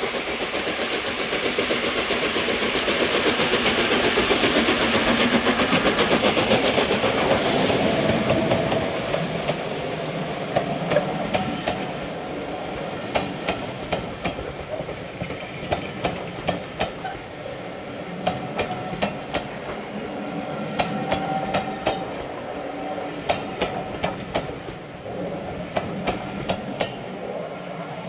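Class A1 three-cylinder Pacific steam locomotive passing with fast exhaust beats, loudest about five seconds in, its pitch falling as it goes by. Its train of coaches then rolls past, the wheels clicking over rail joints, until the sound fades near the end.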